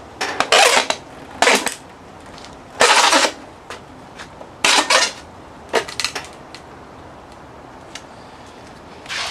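Pliers scraping and clanking against a metal bus bar on a Nissan Leaf battery module stack, in half a dozen short bursts with small ticks between, as the bar, bent by overcharging, is worked loose.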